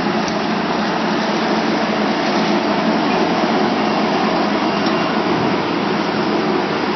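Tractor with a mounted grapevine hedger running steadily as it trims along a vine row: a loud, even engine and machinery noise with no pauses.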